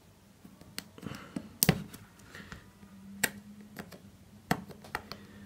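Plastic opening pick clicking and scraping against the edge of an iPhone 6S as its display is pried at with a suction cup, about five sharp clicks with brief scrapes between them; the screen does not give.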